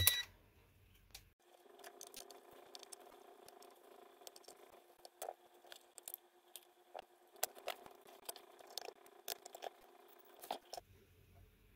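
Light clicks and taps of an ANENG digital multimeter being handled: its rotary dial is turned, then the meter is turned over and set down. The clicks grow busier near the end, over a faint steady hum.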